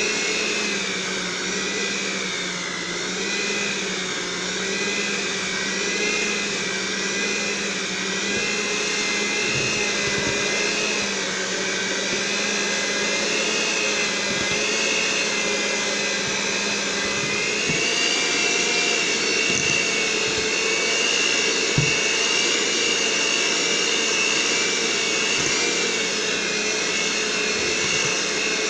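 Electric mixer running steadily at medium-low speed, beating banana bread batter. Its whine wavers slightly, with a few faint knocks.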